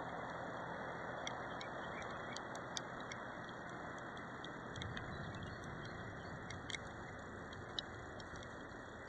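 Steady hiss of rain, with scattered sharp ticks of raindrops striking the dog-mounted camera.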